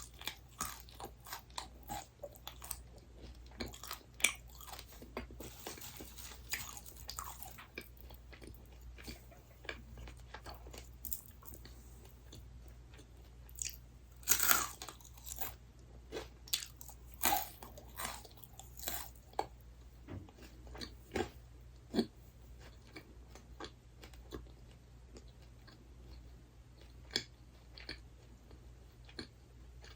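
Close-miked chewing and biting of crunchy snack food: a run of irregular crisp crunches, with a few louder bites in the middle.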